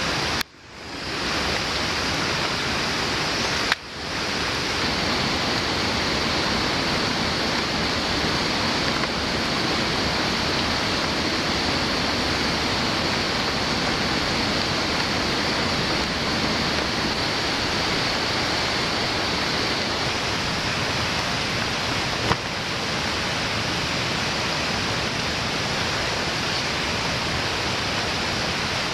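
Steady rushing of flowing water from a rainforest creek or waterfall, an even noise that cuts out briefly twice in the first few seconds.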